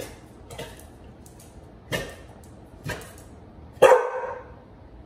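Dog barking: a few short barks, then a louder, longer bark near the end.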